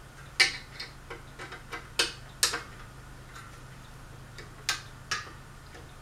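Irregular sharp clicks and taps of a hand tool and screws against the metal switch housing of a ceiling fan being taken apart, about a dozen in all, the loudest about half a second in. A faint steady low hum runs underneath.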